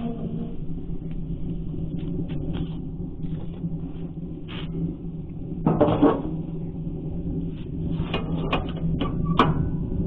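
Hinged steel lid of a charcoal grill being lifted open about six seconds in, a brief metal scrape and clank, followed by several sharp metal clicks; a steady hum runs underneath.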